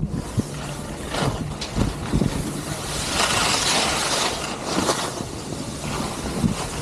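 Wind buffeting the microphone while skiing, with skis scraping across the snow in swelling rushes, the loudest a little after the midpoint.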